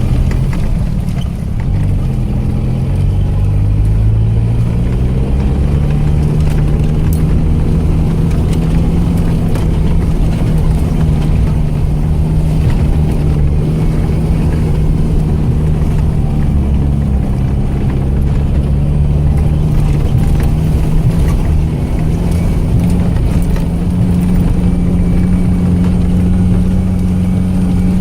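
ARO off-road vehicle's engine running under load while driving, its pitch dipping about a second in, climbing over the next few seconds, then holding steady and rising a little again near the end.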